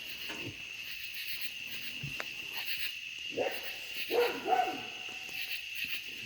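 A dog barks a few short times about midway, over a steady high drone of night insects.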